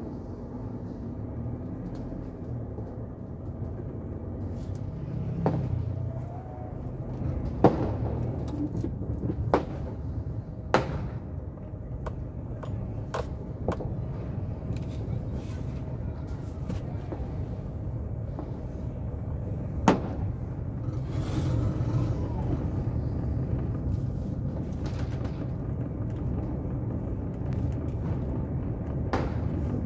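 Steady low rumble of a vehicle moving along a street, broken by several sharp firecracker bangs. The loudest come about eight and twenty seconds in, with smaller cracks scattered between.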